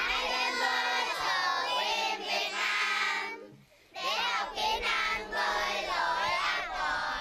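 A group of children singing together in unison, in two phrases with a brief pause between them.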